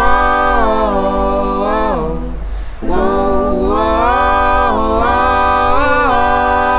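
Background music: the a cappella opening of a song, voices in harmony holding long chords in two phrases.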